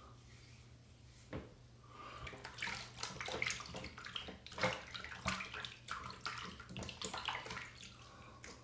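Water splashing in a sink, in irregular spurts for about six seconds, starting about two seconds in, as hands are rinsed. A single click comes just before it.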